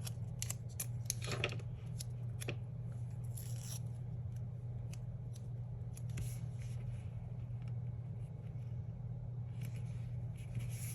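Scissors snipping and paper being handled during sticker crafting: scattered short sharp clicks and a few brief rustling swishes, over a steady low hum.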